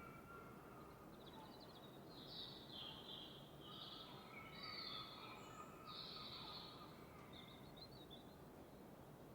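Faint birdsong at dawn: several short, repeated chirping phrases from small birds, over a steady hiss of background noise.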